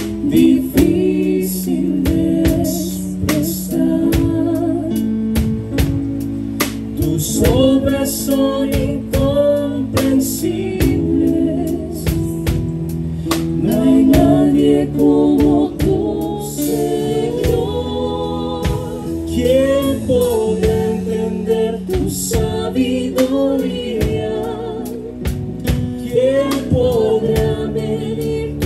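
Live worship band playing a gospel song: singers over held instrumental notes and a steady drum beat.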